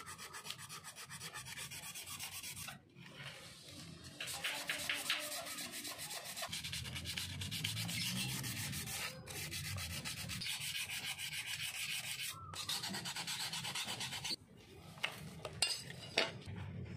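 Sandpaper rubbed by hand over a steel axe blade in quick back-and-forth strokes, a rasping scrub broken by a few short pauses, with a couple of sharp knocks near the end.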